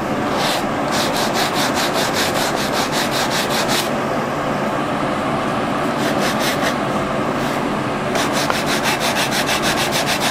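Hand-sanding an oak box edge lightly with 220-grit sandpaper wrapped around a cork block, a dry rasping rub. It comes in three runs of quick short strokes, several a second, with brief pauses between them.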